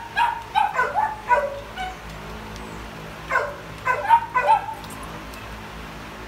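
A dog giving short, high yipping barks: a quick run of about six in the first two seconds, then four more a little after three seconds in.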